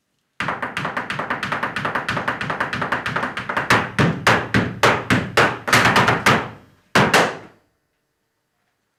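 Flamenco zapateado: a dancer's heeled shoes striking the stage floor. A rapid run of taps starts abruptly, slows into louder, evenly spaced stamps, and ends with a final pair of stamps.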